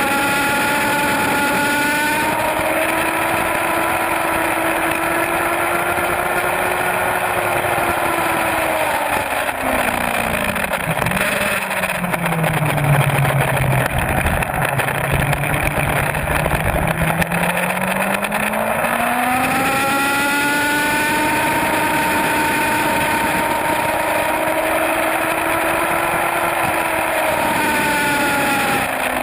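On-board sound of a Suzuki GSX-R750 sport bike's inline-four engine at high revs under a steady rush of wind. About ten seconds in, the revs sink steadily as the bike slows for a corner, stay low through the turn, then climb back as it pulls out.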